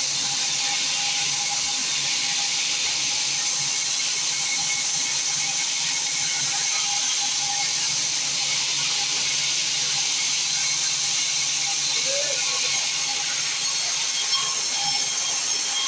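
Small sawmill's saw machinery running steadily, an even, continuous noise with a faint steady hum under it.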